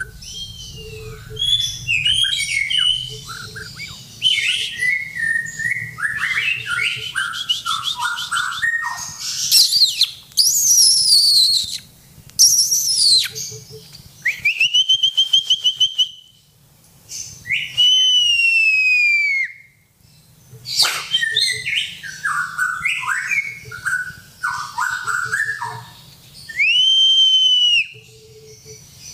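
White-rumped shama (murai batu) singing: a fast, varied run of chirps, trills and steeply sweeping notes, broken three times by a long clear whistle that rises, holds and falls away.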